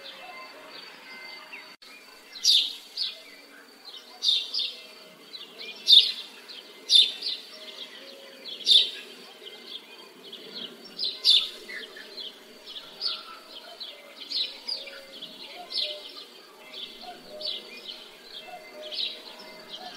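Birds chirping in a village ambience: sharp chirps come about once a second, loudest in the first half and softer toward the end, over a faint low background hum.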